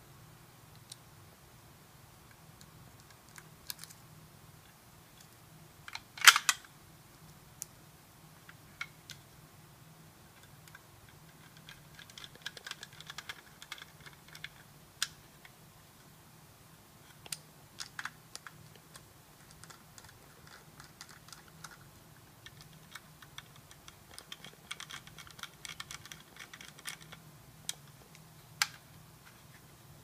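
Quiet clicks and ticks of a small precision screwdriver turning the mounting screws out of a 2.5-inch laptop hard drive, with short runs of rapid ticking as the screws turn and a sharper knock about six seconds in.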